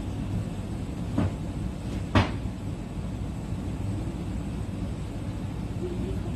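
Steady low background rumble with two short knocks about a second apart, the second louder.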